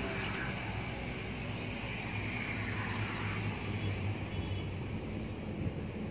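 A steady low mechanical drone, like a motor running at a distance, with a few faint clicks.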